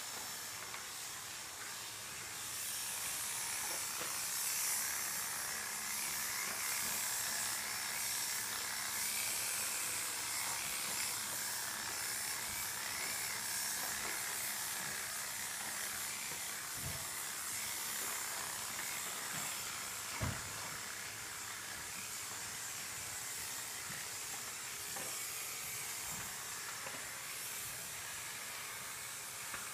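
Electric pet clippers running with a steady hiss, with one short knock about twenty seconds in.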